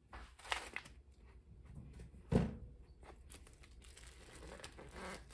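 Plastic wrap crinkling and rustling as smoked turkey necks are handled and pulled from their package, with one dull thud a little over two seconds in, the loudest sound, as a neck is put into a metal pot.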